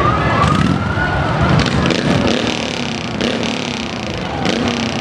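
Busy parade-street noise: a vehicle running amid crowd chatter, with one tone that rises and then falls over the first second or so.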